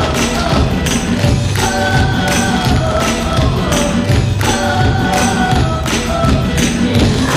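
A recorded song plays loudly with a steady beat, mixed with the sharp clicks of a group's tap shoes striking the stage floor.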